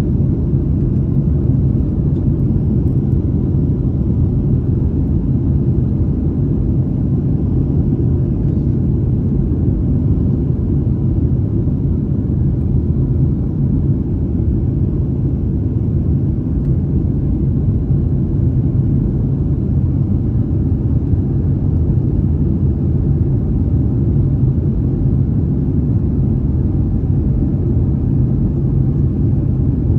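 Steady low cabin noise of a Boeing 737 airliner climbing after takeoff: jet engines and rushing airflow heard through the fuselage.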